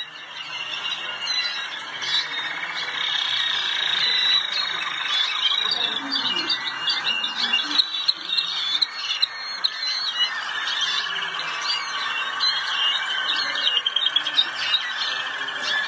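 Malinois Waterslager song canary singing without a break, a long run of rapid trills and rolling notes.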